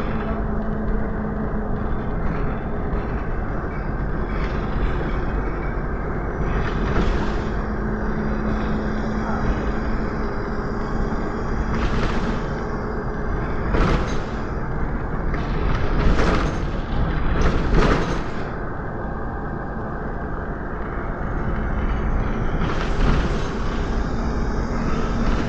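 Inside a Volvo B7RLE single-deck bus on the move: steady engine and road noise with a low drone that fades in and out. Several short, sharp noises cut through, bunched in the middle of the stretch.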